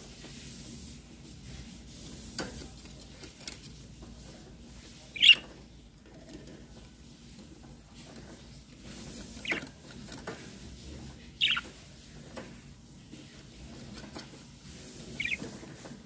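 Budgerigar giving short, high chirps, four of them a few seconds apart, the loudest about five seconds in, with a few faint clicks between.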